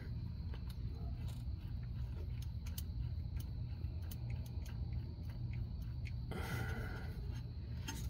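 Steady low wind rumble on the microphone, with light scattered clicks and scrapes of a hand working at the plastic wiring plugs of a neutral safety switch. A brief hiss comes in about six seconds in and lasts over a second.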